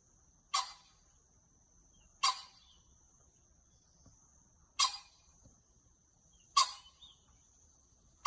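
A short, sharp animal call repeated five times, roughly every two seconds, each starting suddenly and fading quickly. Underneath runs a steady high-pitched insect trill.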